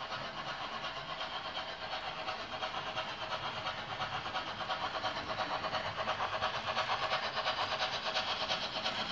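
Model steam locomotive's sound running as it pulls its train: even, rhythmic chuffing with steam hiss, about three to four beats a second, growing a little louder as the engine comes past.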